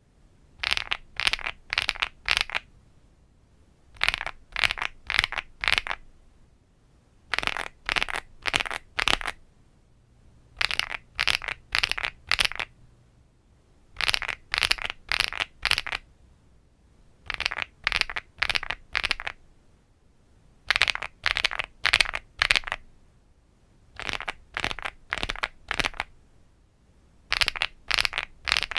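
Wob Rainy75 mechanical keyboard typed in short runs of about eight keystrokes (a-s-d-f-j-k-l-;). A run comes roughly every three and a half seconds, with quiet pauses in between. The FR4-plate build gives way to the polypropylene-plate build about seven seconds in.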